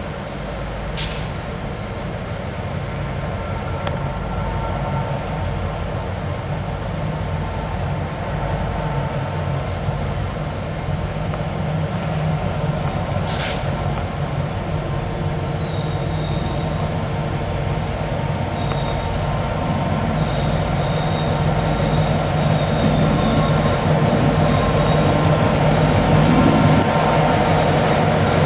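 Diesel switcher locomotives of a slow slab train approaching and passing; the engine rumble grows steadily louder. A thin, wavering high squeal sounds through the middle, and there are two sharp clicks, one about a second in and one about 13 seconds in.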